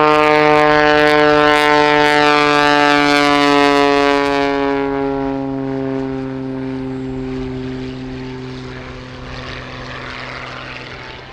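Wolf Pitts Pro aerobatic biplane's piston engine and propeller at full power on a low pass: a loud, steady drone. From about four seconds in it slowly falls in pitch and fades.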